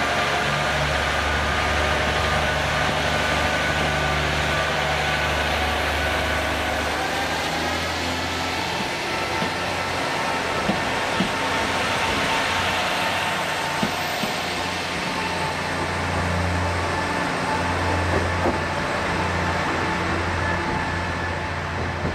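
A KiHa 40-series diesel railcar pulling out of the station. Its diesel engine runs with a steady low drone that changes note about seven seconds in, and a few sharp clacks come as the cars roll over rail joints.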